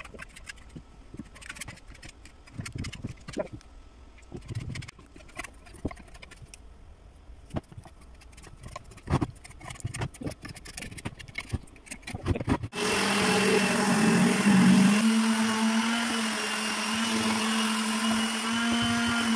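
Scattered light taps and scrapes of hand work on pine boards. About two-thirds of the way in, an electric palm sander starts and runs steadily to the end, a motor hum with the hiss of sandpaper on wood; this is the loudest sound.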